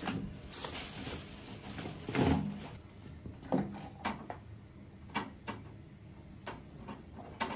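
Oyster shells clacking and scraping against a wire grill grate as they are picked up and set down: a scatter of sharp clicks, with one heavier clatter about two seconds in.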